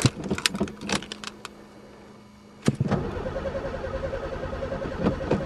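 Starter cranking an old Pontiac's engine, which turns over with a fast even chug but does not fire. The cranking dies away about a second in, a sharp click comes near the middle, and then it cranks steadily again. The owner suspects broken fuel lines.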